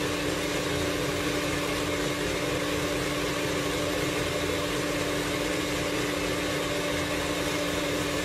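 Electric mixer running steadily, creaming shortening, sugar and molasses into a thick batter; a constant motor hum.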